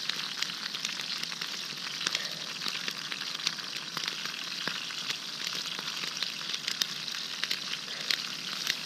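Perch frying in oil in a pan over a campfire: a steady sizzle with frequent sharp crackles and pops.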